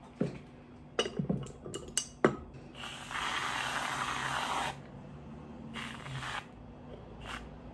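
Aerosol whipped cream can spraying cream onto a drink: a steady hiss of about two seconds, then a shorter spurt and a brief puff near the end. A few sharp clicks and knocks come before the first spray.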